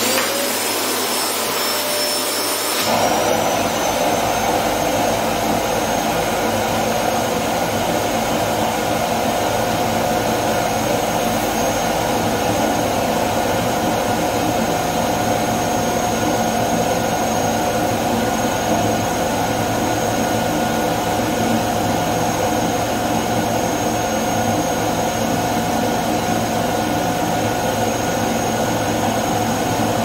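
Vacuum cleaner running steadily, its nozzle held against a bare stomach. About three seconds in, its whine steps up in pitch and the noise grows fuller, then holds steady.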